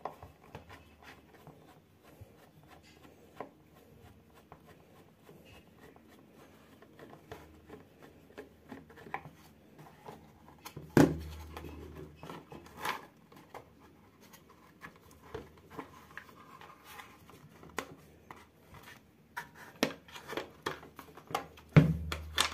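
A screwdriver working small screws out of the back of a motorcycle's plastic speedometer housing, with small clicks and scrapes, then the housing being handled and set down with a few knocks, the loudest about eleven seconds in and several more near the end.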